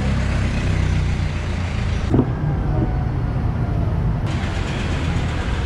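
Steady low rumble of a motor vehicle's engine running, with a brief sharp knock about two seconds in.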